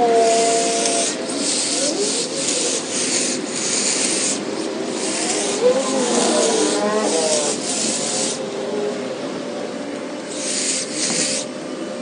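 Pole hedge trimmer cutting through the leafy crown of a small tree: repeated rustling bursts of blades chewing through leaves and twigs, each one to three seconds long, over the motor's hum, which rises and falls in pitch. The cutting pauses for a second or two, then comes back once briefly near the end.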